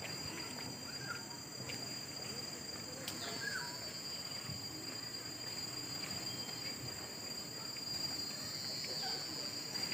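Steady high-pitched drone of tropical forest insects, with a few short bird chirps over it.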